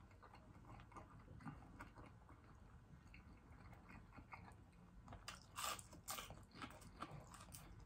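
Faint close-up mouth sounds of chewing fried shrimp: soft wet clicks. There is a brief run of louder smacks and sucks a little over five seconds in, as fingers are licked.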